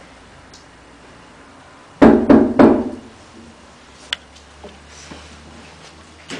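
Three loud knocks on a door in quick succession, about two seconds in. A few faint clicks and light movement sounds follow over a low steady room hum.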